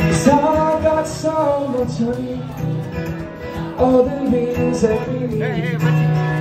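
A song sung with guitar accompaniment, the singer holding a wavering note near the end.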